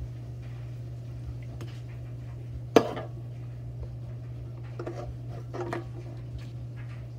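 Aluminium soda can set down on a countertop by a long-handled reacher-grabber: one sharp knock about three seconds in, then a few lighter clicks and clatters as the grabber's jaws release the can, over a steady low hum.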